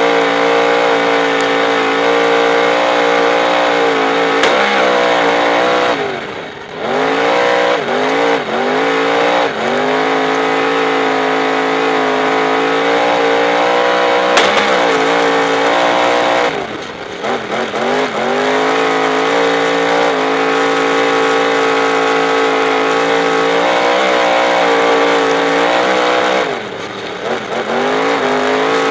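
Superstock speedway car's V8 engine heard from inside the cockpit, running hard at high revs. Three times the engine note drops sharply as the throttle is lifted for a corner, then climbs back in a few rising surges.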